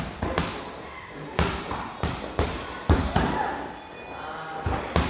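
Gloved punches landing on a Windy hanging heavy bag: a run of sharp thuds at uneven spacing, some coming in quick pairs.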